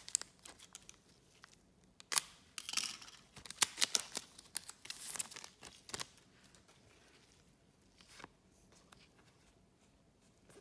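Trading cards and their foil pack wrapper being handled: a run of crinkles, rustles and light snaps that thins out after about six seconds.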